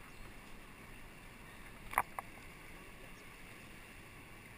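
Steady rush of the Colorado River's fast water around a rowing raft, with a sharp knock about two seconds in and a lighter one just after.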